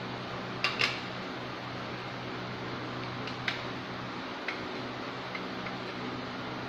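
Electric fan running with a steady hum and hiss, with a few light clicks as a ring light and its cable are handled: a quick double click about a second in, then single clicks around the middle.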